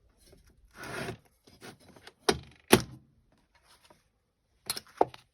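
A steel tool chest drawer sliding, followed by sharp metallic clunks and clicks as hand tools and a tin are handled, the two loudest clunks about halfway through.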